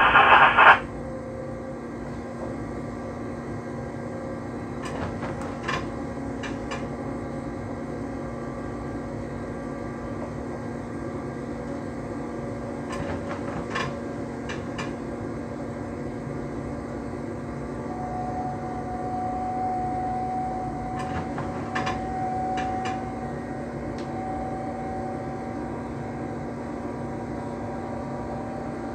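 Electric train running, heard from inside the driver's cab: a steady drone with a constant low hum. A short loud burst comes right at the start, a higher whine rises out of the drone from about 18 to 23 seconds in, and a few sets of three quick clicks sound along the way.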